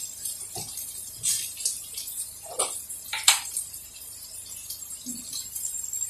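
A few light knocks and clinks of kitchen containers being handled as a jar is taken down from the shelf, the sharpest about three seconds in, over a steady hiss.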